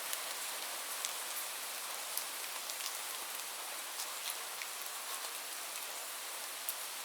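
Light rain falling steadily, a soft even hiss with scattered individual drops ticking on a surface.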